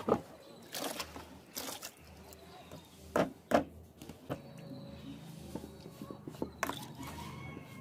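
Kitchen knife chopping on a wooden chopping board: a few irregular knocks, the two loudest a little after three seconds in.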